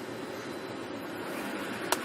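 A 5.4-litre V8 idling steadily while it still misfires on cylinder 1 from a bad ignition coil, with a sharp click near the end.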